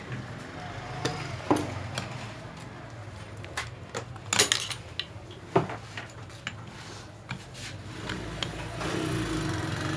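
Metal tools clinking and knocking against a metal pulley assembly as a very tight bolt is worked loose with a wrench while the pulley is held still, in scattered sharp clicks, the loudest about four and a half and five and a half seconds in, with a steadier, louder noise near the end.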